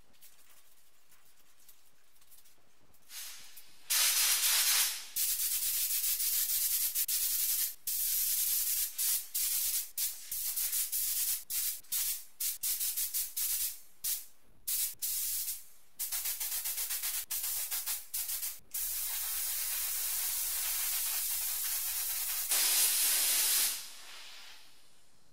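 Compressed-air paint spray gun spraying, a loud steady hiss broken by many brief gaps, starting about four seconds in and stopping shortly before the end.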